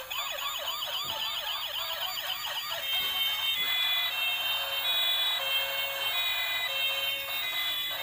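Toy police car's electronic siren from its built-in speaker: a fast warbling wail of about four sweeps a second, switching about three seconds in to an alternating high-low two-tone pattern.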